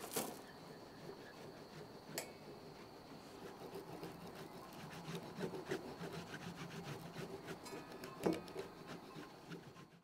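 Hard Parmesan cheese being grated on the wood saw of a Victorinox Huntsman pocket knife: quiet, rapid rasping strokes of the saw teeth against the cheese, quickening from about four seconds in, with a few sharper clicks.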